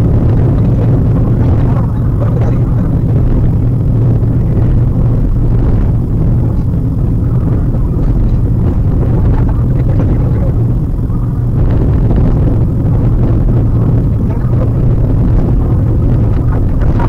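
Steady engine and road noise inside a moving Maruti Suzuki WagonR's cabin, a constant low hum under tyre rumble.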